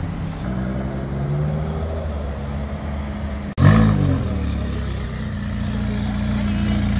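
A Jaguar F-Type's engine running in slow traffic, its pitch rising a little. After a sudden cut about three and a half seconds in, a McLaren's twin-turbo V8 gives a short, loud rev that falls away and settles to a steady idle.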